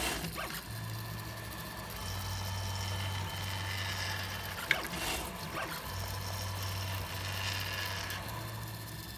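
3D printer running a print: its stepper motors hum and whine in steady stretches of a second or so, changing tone as the bed and print head move back and forth. One sharp click about four and a half seconds in.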